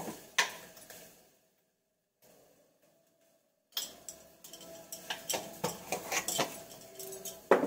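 Metal spoon and steel cookware clinking while cooking: one clink just after the start, a gap of near silence for about two and a half seconds, then a run of light clinks and taps.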